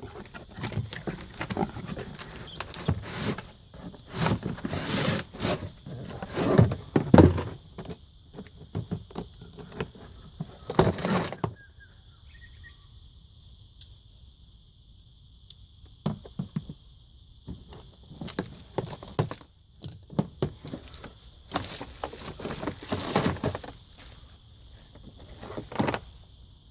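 Irregular knocks, clinks and scrapes of hand work with tools and hard materials, in bursts with a quieter stretch in the middle. From about halfway a steady high insect chirring runs on underneath.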